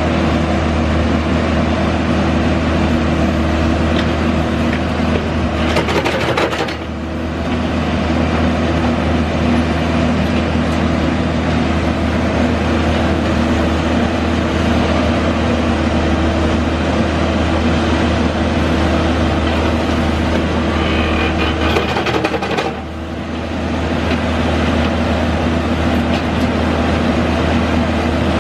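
Backhoe engine running steadily, with a brief drop in level twice, about a quarter of the way in and again near the end.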